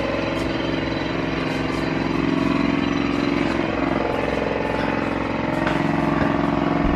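A steady mechanical drone, like a motor or engine running evenly, holding a constant level with a faint high whine above it.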